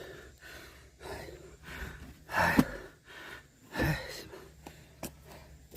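A man's heavy gasping breaths, two loud ones about two and a half and four seconds in, as from exertion while splitting firewood.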